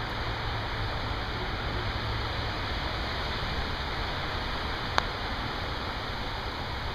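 Heavy thunderstorm rain falling as a steady, even hiss, with one sharp click about five seconds in.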